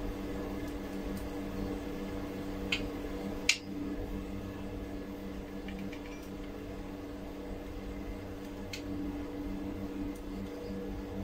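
Steady low hum of background machinery, with a few sharp light clicks from a spirit level and metal shelf bracket being handled against the wall, the loudest about three and a half seconds in.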